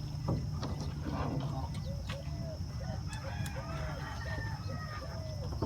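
Chickens calling: a quick run of short, repeated clucking notes starting about a second and a half in, over a steady low rumble.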